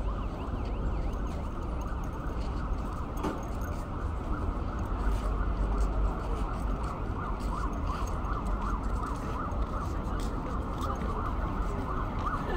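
Steady hubbub of a crowd of people talking outdoors, with many short high rising-and-falling chirps through it, thickest in the second half.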